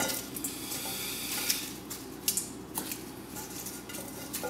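Peeled garlic cloves and papery skins being picked out of a stainless steel mixing bowl by hand: light rustling, with a few sharp clicks as cloves knock against the metal.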